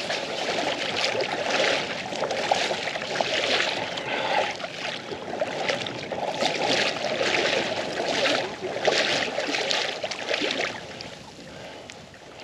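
Someone wading through shallow water, the water sloshing and splashing with each stride at about one a second. It fades about eleven seconds in.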